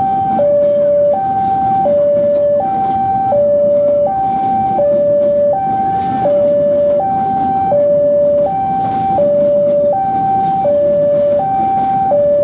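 Railway level-crossing warning alarm sounding continuously, an electronic two-tone that alternates between a higher and a lower pitch, each held for under a second. Under it runs the steady rumble of passenger coaches rolling past on the rails.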